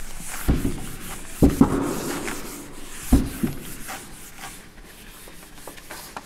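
Marker scraping and tapping on a whiteboard, with a few sharp knocks against the board in the first three seconds. After that a duster or hand rubs across the board, wiping it clean.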